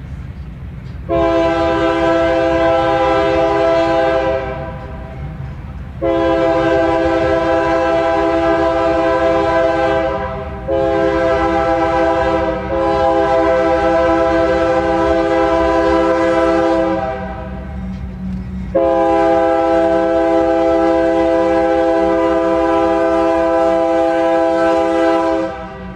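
Locomotive horn sounding a multi-note chord in the grade-crossing pattern: two long blasts, a short one, a long one, then a further long blast, over the low rumble of the passing train.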